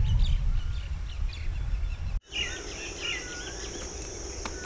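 Birds chirping over a low rumble of wind on the microphone. It cuts off suddenly, and then birds call over a steady high-pitched insect drone and the hum of a wild honeybee colony nesting in a tree hollow.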